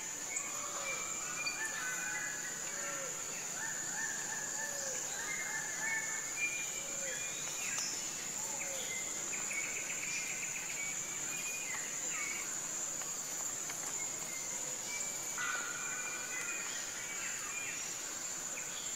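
Forest ambience: a steady high insect drone with scattered short whistled bird notes. A low call repeats about every second and a half through the first half, and a rapid trill comes about ten seconds in.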